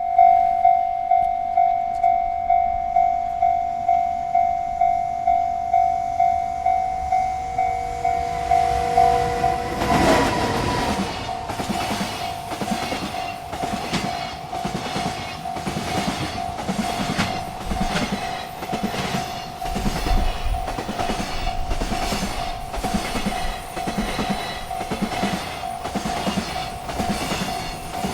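Railroad crossing bell ringing steadily at about two strikes a second. About ten seconds in, a freight train reaches the crossing and its cars pass with a regular clickety-clack of wheels over the rail joints, the bell still ringing underneath.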